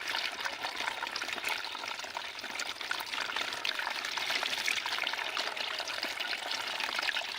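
Water pouring and trickling steadily into a bamboo fish trap, with a dense crackle of small splashes.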